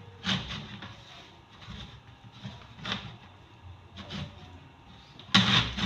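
A hand working crumbly flour-and-oil dough in a bowl, squeezing and pressing it with soft, irregular thuds and rustles about once a second. The loudest knock comes near the end.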